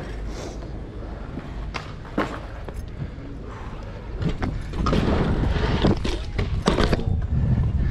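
BMX tyres rolling over skatepark concrete with a steady rumble, broken by several sharp knocks and clatters from the bike; it gets louder from about five seconds in.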